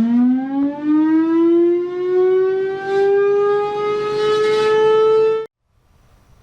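Federal Sign & Signal Model L electromechanical siren winding up, its pitch rising from a low growl and levelling off into a steady wail. The tone cuts off suddenly near the end.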